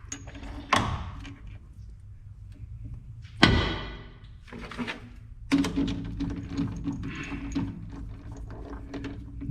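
Metal knocks and clanks from setting up a metal lathe: it is shifted out of back gear and a small threaded workpiece is fitted into the chuck. The loudest is a ringing metal clank about three and a half seconds in; from about halfway a steady hum runs under lighter clicks.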